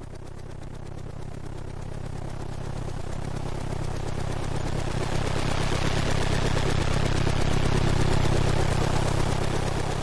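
Helicopter flying past: the fast rotor chop and engine grow steadily louder as it approaches, are loudest about eight seconds in, then begin to fade as it moves away.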